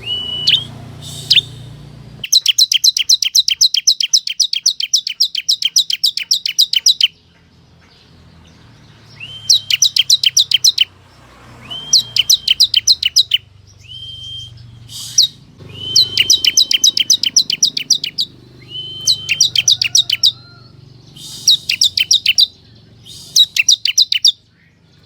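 Ciblek kristal (bar-winged prinia) song played as a lure call. It comes in repeated fast trills of sharp, high chirps, about six to seven a second, lasting one to five seconds each, many opening with a short steady whistle, with short pauses between phrases.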